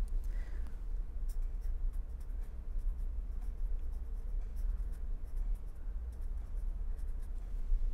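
A pen writing on paper in many short strokes, over a steady low hum.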